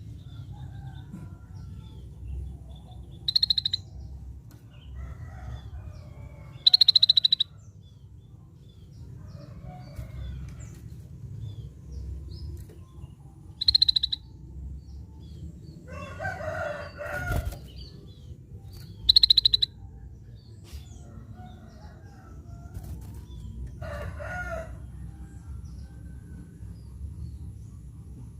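Scaly-breasted bulbul calling: four short, loud, rapidly pulsed high-pitched calls a few seconds apart, with two lower, rougher calls in between, over a steady low hum.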